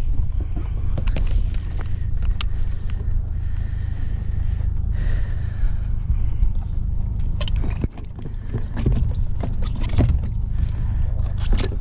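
Low steady rumble with scattered knocks, taps and clatters of mooring lines and a boat hook on a sailboat's foredeck as a mooring ball is picked up; the knocks come thicker in the second half.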